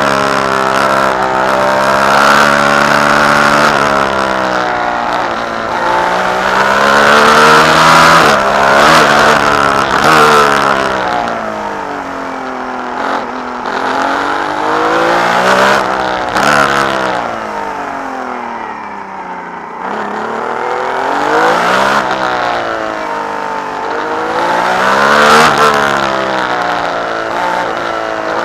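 Onboard sound of a 1970 Ferrari 312B's three-litre flat-12 racing engine, revving up and down as the car accelerates, brakes and changes gear through a run of slow corners. The pitch climbs and falls several times and drops lowest about two-thirds of the way through before climbing again.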